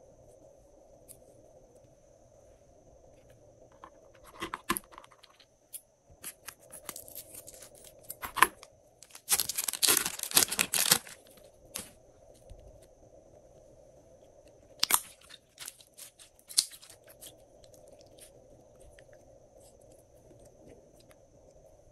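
Slime being handled against thin clear plastic: crinkling and tearing as green slime is peeled off the plastic, in short bursts and loudest about ten seconds in, with a couple of sharp snaps later on.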